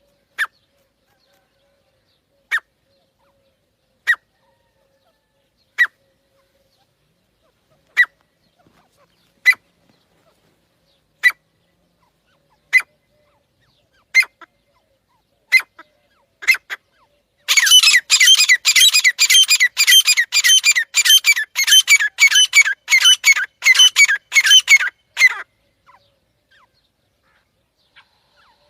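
Partridge (teetar) calling: single sharp, high calls spaced about every one and a half to two seconds, then a fast run of calls, several a second, for about eight seconds that stops suddenly.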